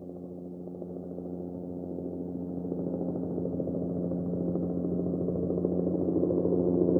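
A steady, low droning tone with several overtones and a fine flutter, growing steadily louder throughout.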